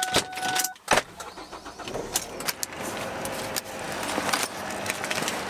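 A Ford car's two-tone warning chime cuts off just after the start, a sharp knock about a second in, then the car's engine running with a steady hum under scattered clicks and jangling.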